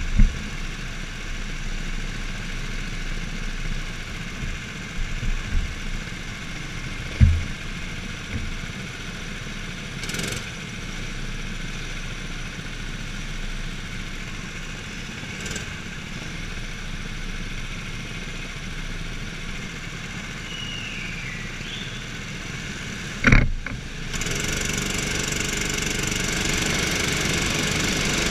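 Kart engines running at low speed, heard from the driver's seat, with a few sharp knocks. About 23 seconds in there is a loud thump, then the kart's engine opens up and runs louder and steadier.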